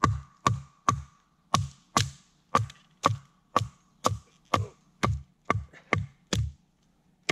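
TOPS Bushcrafter Kukri 7.0 machete striking repeatedly into knotty softwood to split it: about fourteen hits, roughly two a second, each a dull thud with a short metallic ring from the steel blade, stopping shortly before the end.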